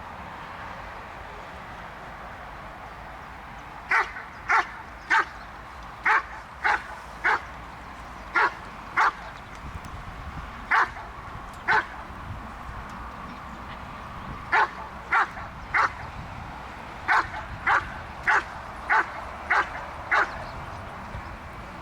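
Belgian Shepherd dog barking: after about four seconds of steady background, it gives loud, sharp barks in runs of two or three about half a second apart, with short pauses between runs, around nineteen barks in all.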